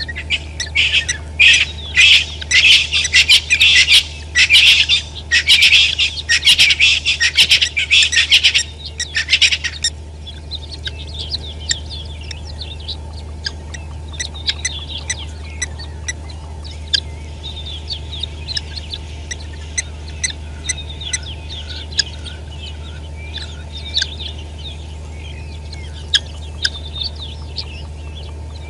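A flock of helmeted guineafowl calling. A loud, rapid chorus of harsh cackling calls runs for about the first nine seconds, then breaks into scattered softer chirps and clicks, over a steady low hum.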